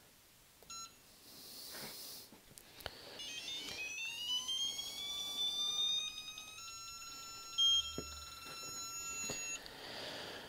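Icon 1/2-inch digital torque wrench's beeper sounding as it is pulled to its 250 ft-lb target on a torque tester. A short beep about a second in, then a tone climbing steadily in pitch as the torque builds, which turns into a steady tone for about three seconds once the target is reached. A brief dull thump near the middle of the steady tone.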